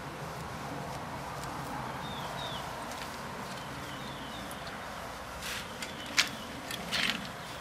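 Handling noise from a laptop chassis on a glass-topped desk: a few sharp clicks and knocks between about five and seven seconds in, the loudest near six seconds, over a steady background hiss with a few faint high chirps.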